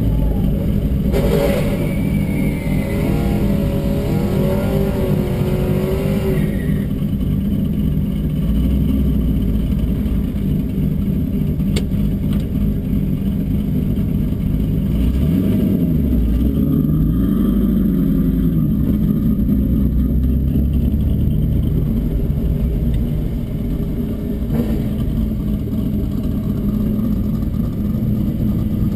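Mitsubishi 3000GT VR-4's twin-turbo V6 running steadily, heard from inside the cabin, while a drag car ahead revs up and down through its burnout, loudest in the first few seconds and again around the middle.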